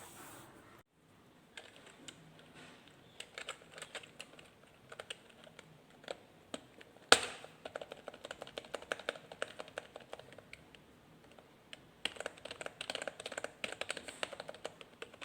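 Typing on a membrane keyboard: runs of quick key presses, with one much louder knock about seven seconds in and the busiest typing near the end.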